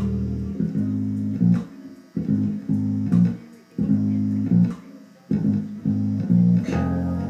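Electric bass guitar played solo, plucked: low notes in short phrases of a second or two with brief pauses between them, and a few sharp string clicks.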